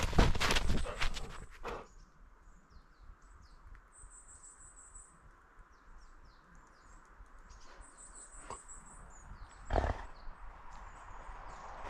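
Loud rustling and rubbing from the dog's own movement against its back-mounted camera for the first second or two. After that it goes quiet, with small birds chirping and trilling high, and a single knock near the end.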